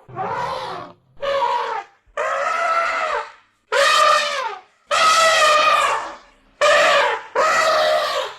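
Elephant trumpeting: about seven brassy calls in quick succession, each lasting about a second or less, with short gaps between them; several bend down in pitch at the end.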